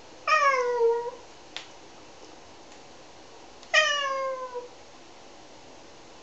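Domestic tabby cat meowing twice, about three seconds apart, each call a long meow falling in pitch. A brief click sounds between the two meows.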